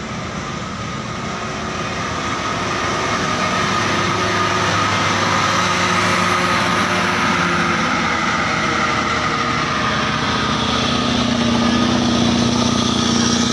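Diesel engine of a Scania truck pulling a loaded lowbed trailer slowly toward and past, running steadily and growing louder over the first few seconds as it nears.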